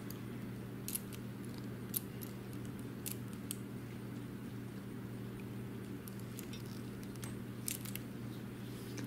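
A hand wire stripper working on 12-gauge wire insulation: a scattering of short, sharp metallic clicks and snips, over a steady low hum.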